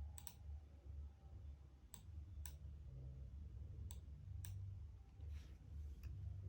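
About six sharp, short clicks, two of them pairs half a second apart, over a faint steady low hum.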